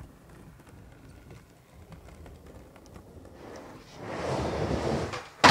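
Skateboard wheels rolling on a ramp surface: quiet at first, then a louder rolling rush from about four seconds in as the skater carves up the bowl wall. A single sharp clack of the board comes just before the end.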